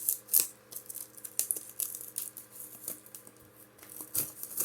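A Pokémon booster box and its packaging being handled: a rapid, irregular run of sharp clicks, taps and light crinkles of card and plastic wrap.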